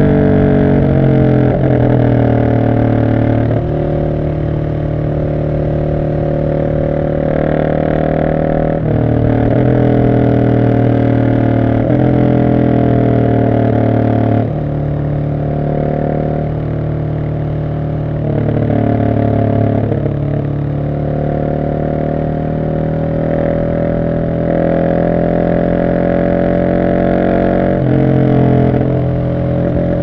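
Husqvarna 701 SM single-cylinder engine through an Arrow decat exhaust, ridden on the road: a loud, deep exhaust note with revs rising and falling repeatedly, stepping in pitch with each gear change.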